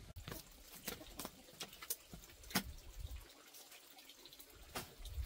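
Faint water sounds with a handful of irregular sharp drips or clicks, the loudest about two and a half seconds in.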